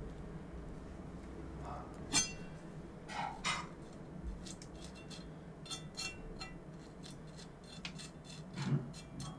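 Faint tableware handling: a single ringing clink of a utensil against a dish about two seconds in, then soft rubbing and a run of light ticks and taps.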